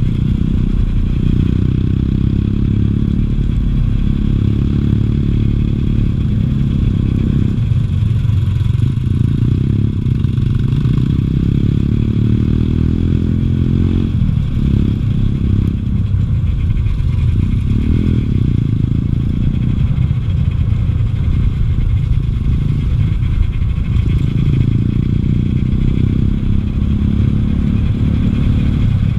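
BOSUER 250cc dirt bike's single-cylinder four-stroke engine running under way, its pitch rising and falling again and again as the throttle opens and closes.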